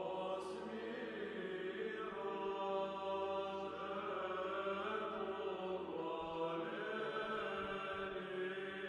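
Background choral chant music: several voices holding long notes that shift slowly in pitch.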